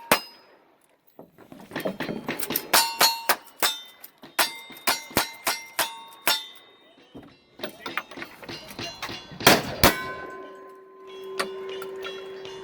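Rapid gunshots at steel targets in cowboy action shooting, each hit ringing out with a clang. A fast string of shots runs for about five seconds after a short pause, then a second, more spread-out string follows.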